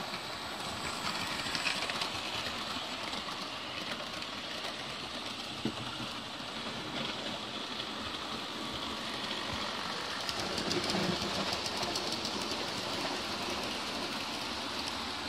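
OO gauge model trains running on the layout's track: a steady whirring of small electric motors and wheels, with a rapid clickety-clack of wheels over rail joints that grows louder about two-thirds of the way through as a freight train passes close by.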